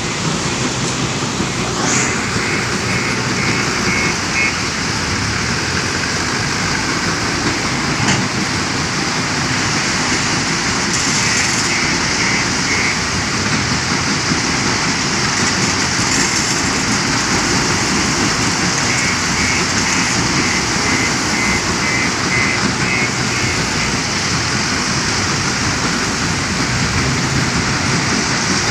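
Steady, dense machinery noise of a working stone crusher plant, with the JCB 530-70 telehandler's diesel engine running as it loads crushed stone into a dump truck. Short runs of quick, high-pitched beeping come and go three times.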